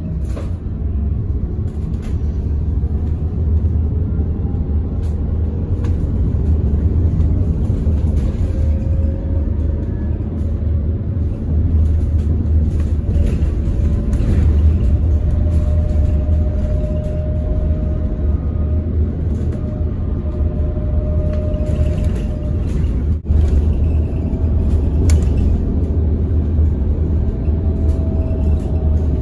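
Bus interior while driving: a steady low rumble of engine and road noise, with a faint whine that slowly rises in pitch.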